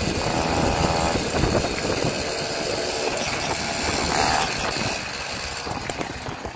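Peugeot 103 moped's freshly rebuilt single-cylinder two-stroke engine running steadily on one of its first test runs, easing off slightly near the end.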